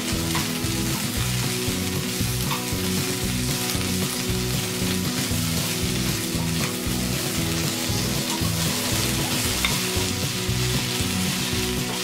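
Cabbage sizzling steadily as it is stir-fried in a nonstick frying pan with a wooden spatula, with a few light taps of the spatula against the pan.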